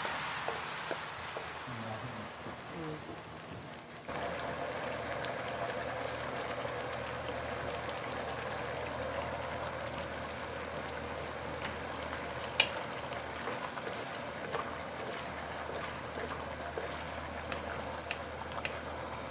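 Sweet and sour sauce bubbling and sizzling in a wok, with fine crackles. It grows suddenly louder and steadier about four seconds in, and there is a single sharp click about two-thirds of the way through.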